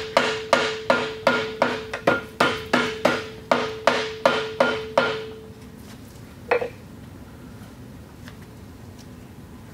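Hammer tapping on the transmission cover of a Mud Buddy Sport V to knock the stuck cover loose. The strikes come evenly, about three a second, each with a ringing metallic note. They stop about five seconds in, and one last tap follows a second or so later.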